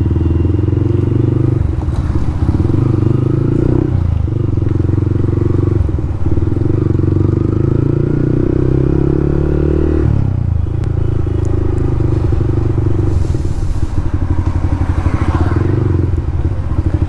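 Motorcycle exhaust running loud with the dB killer removed, as the bike is ridden on the throttle. The engine note climbs in pitch and dips off briefly several times.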